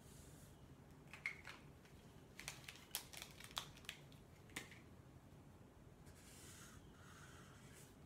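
Sharpie markers being handled and their caps clicked off and on, a series of sharp clicks in the first half, then a felt-tip marker scratching softly across a paper flip-chart pad near the end.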